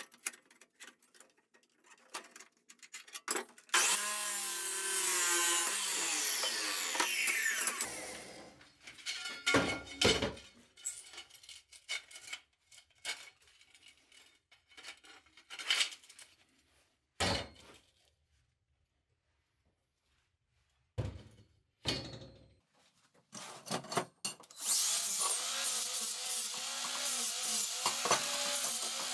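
An abrasive chop saw cuts steel angle and winds down, its pitch falling. Cut steel pieces clank and knock as they are handled. Near the end an angle grinder starts up and grinds the cut steel ends.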